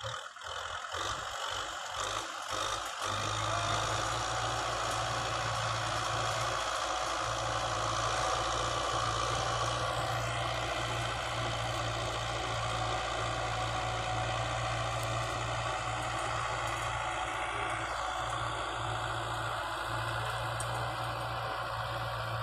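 Kubota M6040 tractor's diesel engine running steadily under load as it drives a rear rotary tiller through dry field soil. The low engine hum settles in about three seconds in and then holds even.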